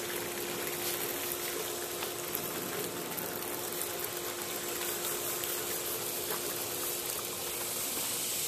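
A steady hiss with one constant hum beneath it, unchanging throughout, like a machine running continuously.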